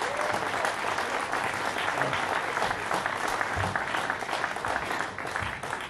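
Audience applauding steadily to welcome a speaker to the podium.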